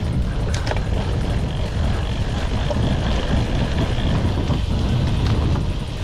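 Bicycle rolling on 32 mm Panaracer GravelKing SK gravel tyres over a gravel path, with wind buffeting the microphone as a steady low rumble. A few sharp clicks and rattles, from stones and the bike, come a little under a second in and again about five seconds in.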